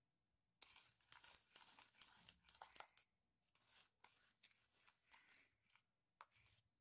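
Faint metal spoon stirring and scraping a thin milk mixture around a plastic bowl, in short irregular strokes that pause now and then.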